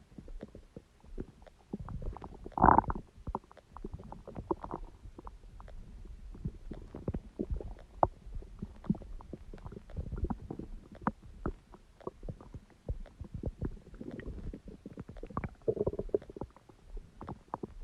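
Human stomach gurgling and rumbling, with a dense run of small pops and crackles. One loud gurgle comes about three seconds in and another near the end.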